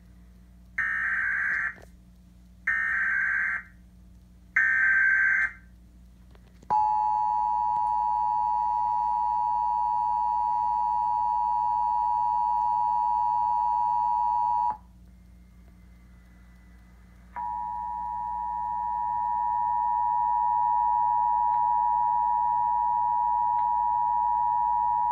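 Emergency Alert System test signal: three short bursts of screeching digital data, the SAME header, about a second apart, then the two-tone attention signal held steady for about eight seconds. After a pause of a couple of seconds the two-tone signal sounds again for about eight more seconds, swelling in level at its start.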